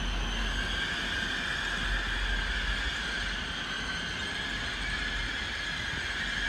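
A passenger train running away from the platform, a steady high whine over a low rumble.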